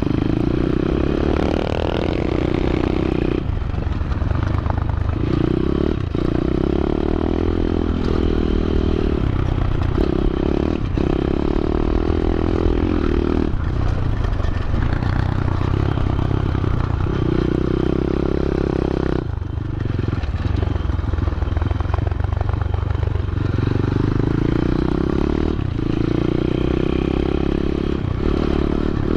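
SSR125 pit bike's small single-cylinder four-stroke engine running under way, heard from the saddle. The revs rise and fall with the throttle, dropping back briefly several times before it pulls again.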